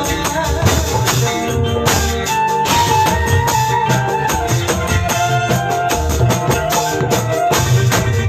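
Live band music with a hand-played tambourine jingling in a steady rhythm over drums and bass, with a held melody line above.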